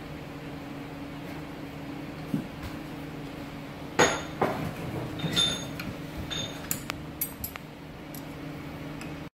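Hand tools clinking and tapping against the steel frame of a hand-lever gang punch while it is adjusted. A sharp metallic clink comes about four seconds in, followed by a run of lighter clinks with brief ringing, over a steady low hum.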